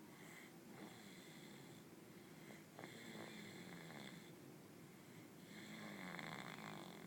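Soft snoring from someone asleep: three long, slow snores, each about a second and a half, a second or so apart.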